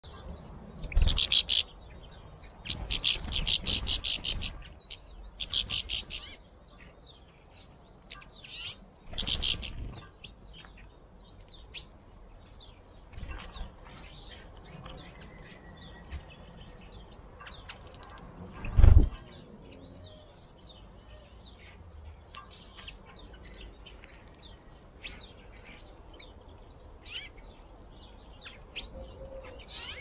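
Small garden songbirds calling, with several loud, rapid, stuttering trills in the first ten seconds and scattered short chirps after that. A single sudden thump comes a little past halfway.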